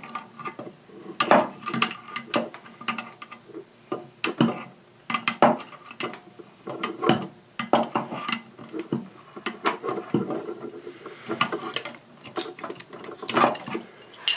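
Adjustable wrenches clinking against each other and a supply-line nut while a braided water supply line is tightened onto a faucet's copper inlet tube: irregular short metallic clicks and clanks, several a second at times.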